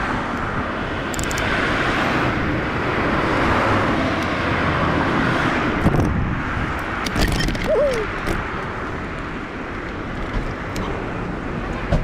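Street and traffic noise with wind rushing over the microphone of a moving e-bike. There are a few clicks and a brief squeak about eight seconds in as the bike turns off the road.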